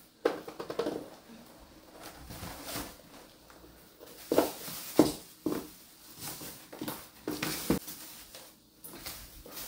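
Bubble wrap and plastic packs rustling and crinkling in short, irregular bursts as they are handled into a styrofoam box.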